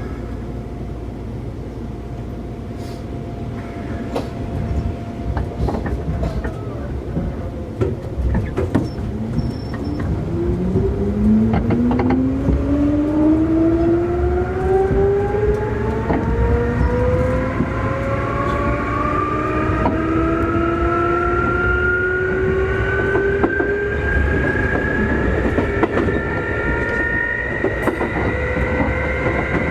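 Keikyu 2000 series electric train heard from inside motor car DeHa 2052: its traction motors, which the uploader thinks are Mitsubishi-made, whine under power as the train speeds up. Several tones start climbing together about a third of the way in and keep rising, over steady rolling rumble and the clicks of rail joints.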